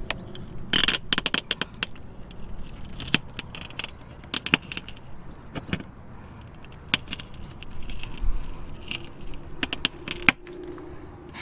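Pliers gripping and working the remains of drilled-out peel-back rivets out of a motorhome's locker door skin: irregular metallic clicks and scraping as the rivets resist being pulled.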